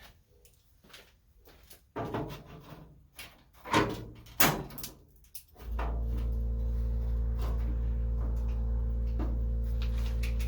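A few sharp knocks and clicks of metal parts being handled, then a steady low hum that comes on about halfway through and holds even.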